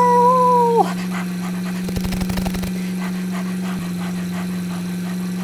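A howl like a dog's, held on one pitch for under a second and falling away at the end, over the steady hum of an idling car engine sound effect. A short rattling burst comes about two seconds in.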